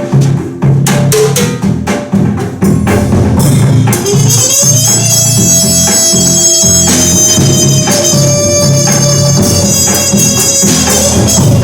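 Live band music driven by drums. About four seconds in, a held note slides up and sustains with a bright, buzzy edge over the beat, then eases off near the end.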